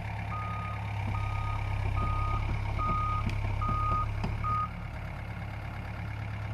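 Reversing alarm on a piece of heavy machinery beeping six times, about one beep a second, over the steady low hum of its engine running.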